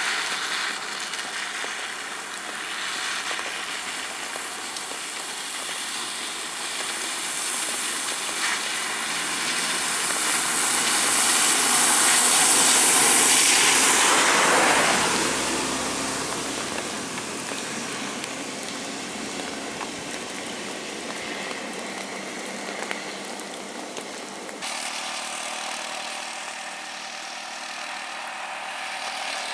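Road vehicles driving past on a wet road: engine noise and tyre hiss on the wet surface. It swells to its loudest about halfway through as a vehicle passes close, then eases off, with an abrupt change in the sound near the end.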